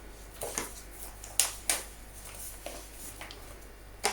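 A few light, sharp taps and clinks of kitchen utensils against a bowl, spaced irregularly, as flour is measured into the bowl.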